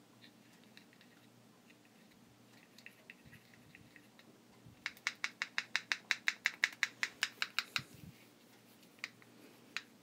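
Quick run of small plastic clicks, about seven a second for some three seconds, then two single clicks, from the plastic oscillation gearbox of an oscillating table fan being worked by hand while it is oiled.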